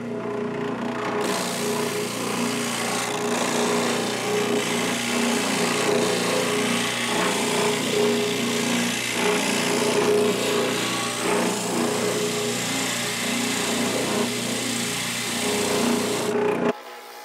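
Benchtop spindle sander running steadily, its motor humming while the edge of a wooden pattern piece is sanded against the spinning drum with a rasping scrape. The sound cuts off abruptly near the end.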